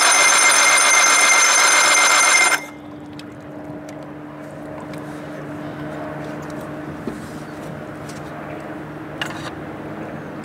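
The three-cylinder two-stroke engine of a 1987 Johnson 70 hp outboard, turned over on its electric starter for a cold compression test of cylinder three: a steady, even cranking whine that stops abruptly about two and a half seconds in. A faint steady hum remains afterwards.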